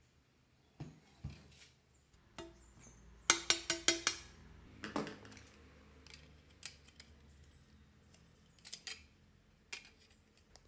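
Handling knocks and clicks as wooden and metal parts of a homemade jigsaw are picked up and fitted by hand. The loudest is a quick run of about five knocks a little over three seconds in, each with a short ring.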